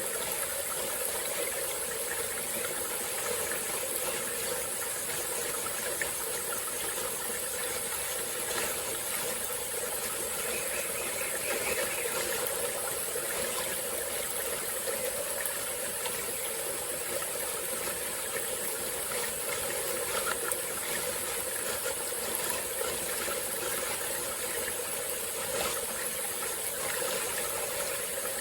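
Small forest stream flowing over rocks, a steady rushing and burbling of water, with an even high-pitched hiss above it.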